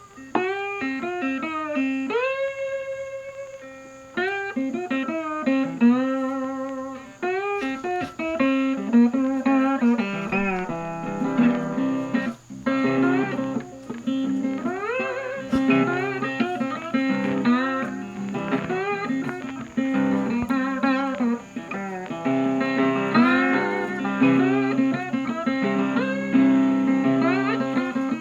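Blues background music on guitar: plucked notes with slide-guitar pitch glides over a steady bass line.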